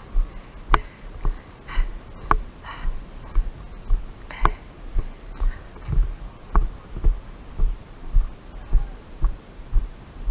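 Footsteps of a walking player jolting a body-worn camera: dull low thuds about two a second, with a few sharp clicks in the first half.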